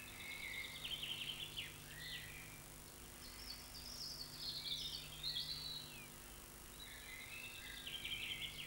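A songbird singing three phrases of rapid, high chirps and quick trills, over a faint steady hum.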